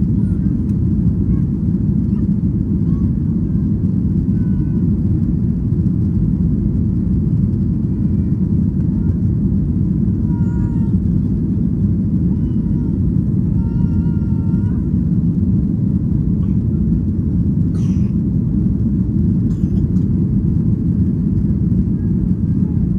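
Steady low roar of jet engines and airflow heard inside the cabin of a Ryanair Boeing 737 climbing after takeoff.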